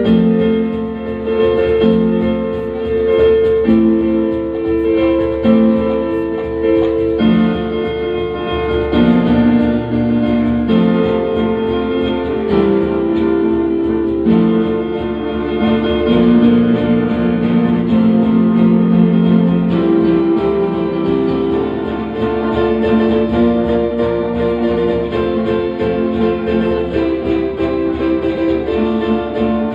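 A small live band plays instrumental music: an electric guitar and electronic keyboards carry a melody of held notes, changing every second or so, at a steady volume.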